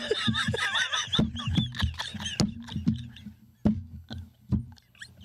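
Two men laughing hard: a high, wheezing laugh for the first couple of seconds, then short bursts of laughter that trail off near the end.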